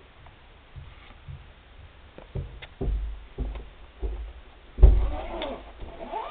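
Handling noise from a handheld camera being moved about: a series of low thumps and knocks, about five in under three seconds, the loudest near the end.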